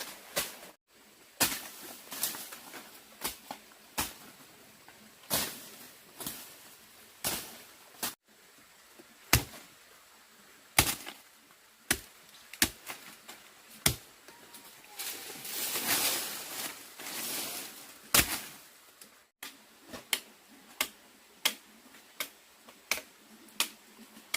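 Sharp blows of a hand tool, mostly one every second or so, with a few seconds of scraping noise near the middle, typical of chopping and working wood. The blows are broken by a few short dead silences.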